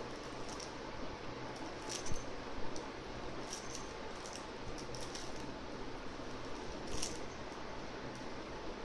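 A Lamaze Freddie the Firefly soft toy being handled and mouthed by a baby: a few faint, scattered clicks and crinkles over a steady hiss and low hum.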